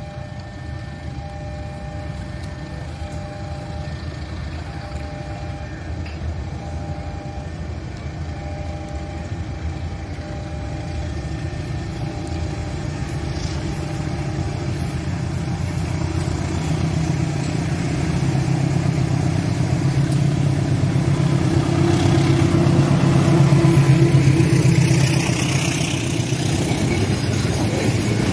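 Diesel-hauled passenger train approaching and passing: a low locomotive rumble builds steadily over about twenty seconds, loudest about four seconds before the end as the locomotive goes by, then wheel and carriage noise as the coaches run past.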